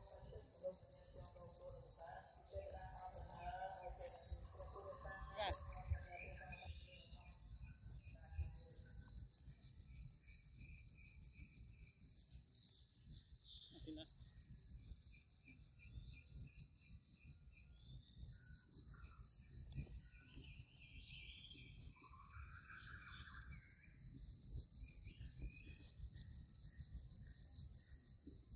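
Insect chorus: a loud, high, rapidly pulsing call that runs on evenly and breaks off briefly a few times.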